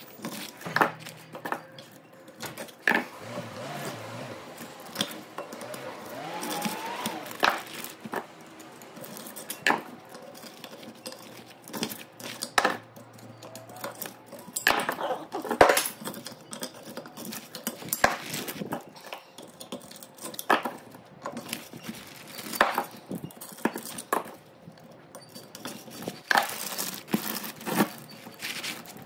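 Irregular metallic clinks and knocks of hand tools on a three-phase electric motor's stator while the burnt copper winding is removed.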